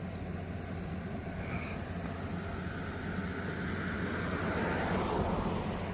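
A vehicle engine running steadily with a low hum, while a passing vehicle's rush swells over it, loudest about five seconds in.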